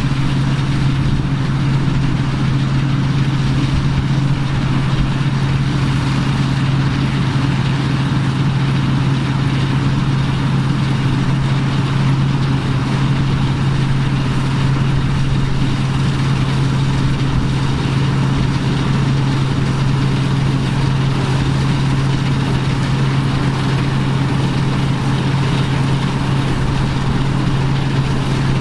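Engine of vintage farm machinery running at a steady, unchanging speed, with a strong constant low hum.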